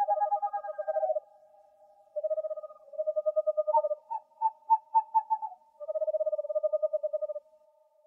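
Owl calls: a series of rapid, evenly pulsed trills at two close pitches, each about a second long, with a few separate notes between them around the middle.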